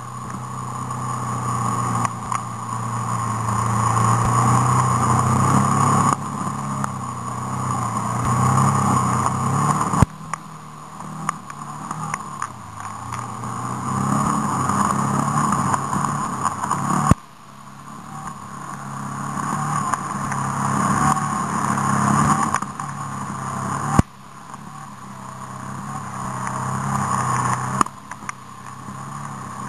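Off-road vehicle's engine under throttle on a dirt track: the engine note climbs for several seconds, then falls away sharply as the throttle is shut, about five times over.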